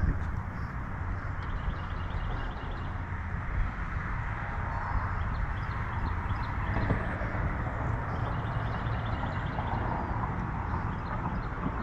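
Wind buffeting the microphone: a steady, rumbling rush heavy in the low end. A faint, rapid, even ticking comes twice, briefly.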